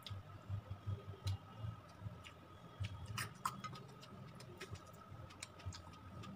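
Close-mic chewing while eating by hand: irregular soft mouth clicks and smacks with low, muffled chewing pulses.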